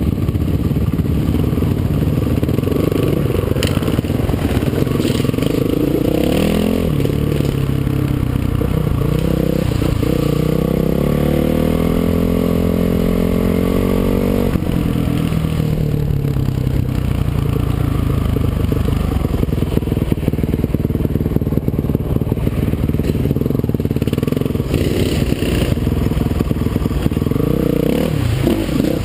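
Dirt bike engine running under the rider on a trail ride, its revs climbing steadily for a few seconds about a third of the way in, then dropping off sharply near the middle, with smaller rises and falls as the throttle is worked. A steady hiss of wind noise runs underneath.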